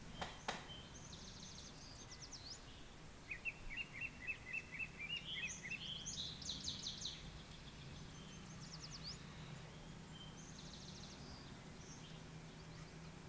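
Small birds chirping: a quick run of about ten high chirps, around four a second, and several short, very high rapid trills. The calls die away in the last couple of seconds over a faint steady low hum.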